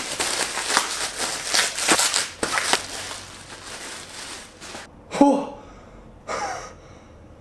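Bubble wrap crinkling and crackling as it is pulled off a badminton racket, dense for about five seconds. Then a man's two short exclamations, about a second apart.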